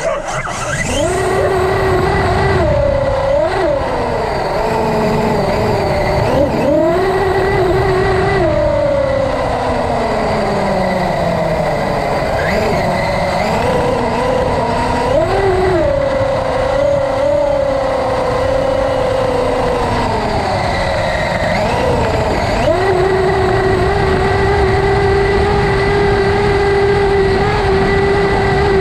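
Traxxas UDR radio-controlled truck driving, heard on board: its electric motor and drivetrain whine rises and falls in pitch as it speeds up and slows, over a rumble of tyres on rough ground. The whine holds a steady pitch for the last several seconds.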